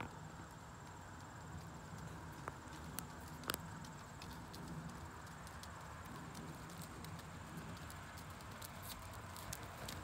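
Faint hoofbeats of a horse moving over the soft sand footing of a riding arena, a scatter of soft thuds and clicks that grows denser near the end as the horse comes closer.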